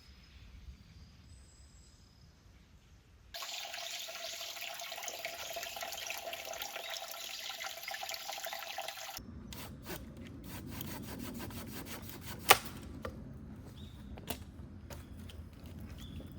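Running water for about six seconds, starting and stopping abruptly, followed by scattered knocks and clicks with one loud knock near the end.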